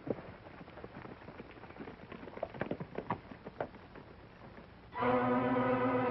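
Horses' hooves clip-clopping in an uneven rhythm as riders move off, growing fainter. About five seconds in, film-score music comes in suddenly with a loud held chord.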